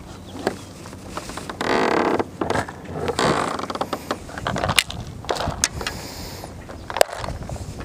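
Fishing tackle handled close to the microphone: a spinning reel and line give a rasping burst about two seconds in and another a second later, then scattered sharp clicks and scrapes.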